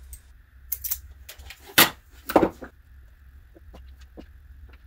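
Automatic wire stripper and fan wires being handled on a workbench: a string of sharp clicks, with two louder clacks a little under two seconds in and half a second later.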